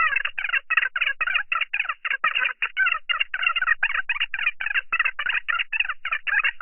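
Women's voices in a phone conversation played fast-forward: high-pitched, rapid chattering with syllables run together several to the second, thin and narrow like a telephone line.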